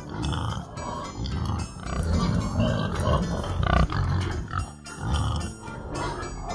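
Nursing sow grunting repeatedly in low, short grunts while her piglets suckle, with background music.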